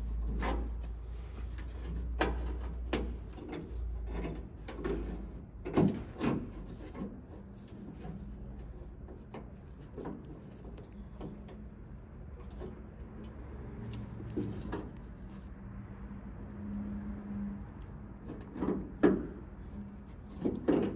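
Scattered metallic clicks and knocks of hands working the door latch mechanism and its linkage inside a steel car door. Two sharper knocks stand out, about six seconds in and again near the end.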